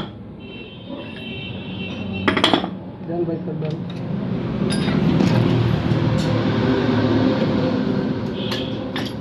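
Metal tools and engine parts clinking during motorcycle engine work, with a few sharp knocks, over indistinct voices in the background.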